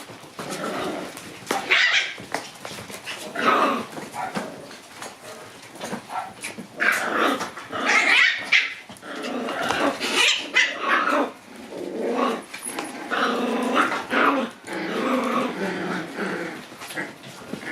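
Two-month-old Shiba Inu puppies play-growling and yapping at each other in rough-and-tumble play, in irregular bursts that come and go.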